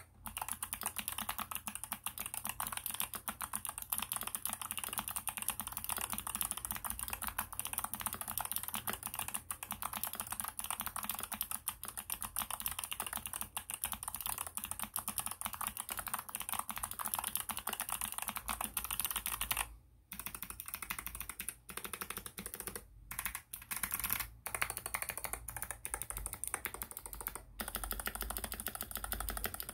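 Typing on a COX Galleon aluminium mechanical keyboard fitted with NovelKeys x Kailh Box Jade thick clicky switches: a fast, dense stream of sharp clicks. There is a short pause about twenty seconds in and a few brief breaks near the end.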